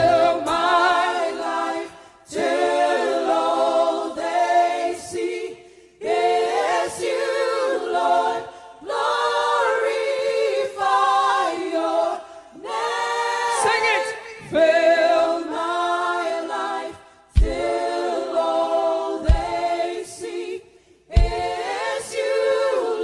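Gospel worship team singing a cappella, several voices together in phrases of a few seconds broken by short pauses, with no band playing. A few brief low thumps in the second half.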